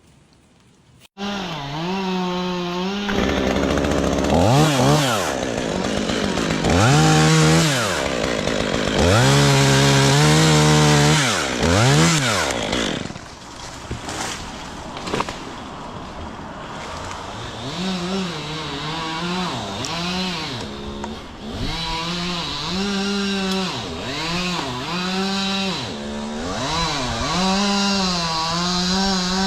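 Chainsaw cutting poplar. It comes in suddenly about a second in and is held at full revs in long stretches between about 4 and 12 seconds. After that it drops back to idle and is revved up and down again and again.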